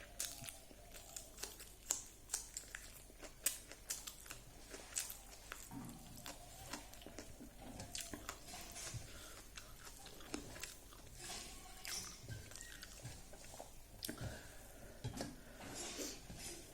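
Close-up chewing and crunching while eating, with irregular crisp bites of fried dried pork.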